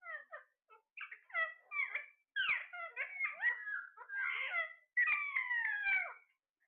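Parrot chattering: a quick run of short squawks and whistled chirps with brief pauses, ending in one longer call that falls in pitch.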